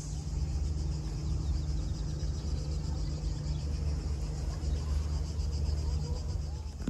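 Cicadas buzzing steadily in summer heat, over a steady low rumble that stops shortly before the end.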